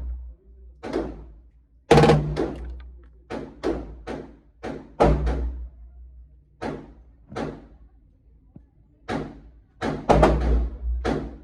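Pistol-calibre gunfire at a shooting range: a long string of single shots at an irregular pace, often two or three a second with short pauses, some shots much louder than others.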